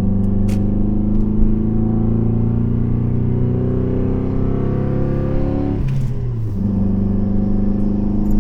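MG ZR's engine pulling under acceleration, its note rising slowly, then dropping at a gear change about six seconds in and running steady again. The engine is still misfiring despite new parts fitted.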